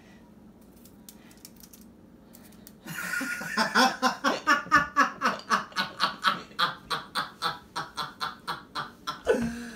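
Quiet for about three seconds, then long, loud laughter in rapid rhythmic peals of about three a second, running until near the end.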